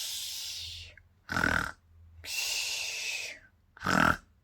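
Imitated snoring: a short, loud, rasping snort on each in-breath alternating with a long, softer hissing 'pshoo' out-breath, twice over.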